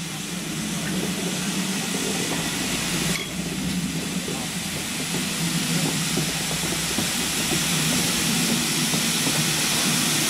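Steam locomotive with a steady, loud hiss of escaping steam over a low rumble of the train. There is a brief dip about three seconds in.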